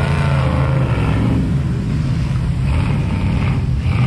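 Off-road vehicle engine running with a steady low hum that fades after about a second and a half, leaving a rougher engine and outdoor noise.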